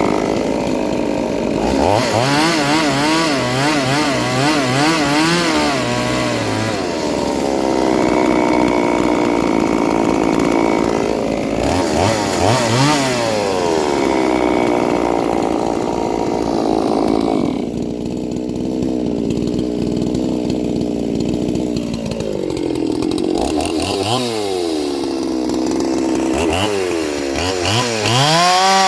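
Ported two-stroke chainsaw engine revving up and down over and over as the throttle is blipped and released, with quick wavering in pitch early on. It holds a high steady rev at the very end.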